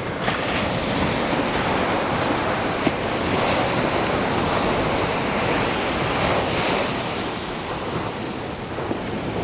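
Small waves breaking and washing up a sandy beach, mixed with wind buffeting the microphone. A brief knock sounds about three seconds in.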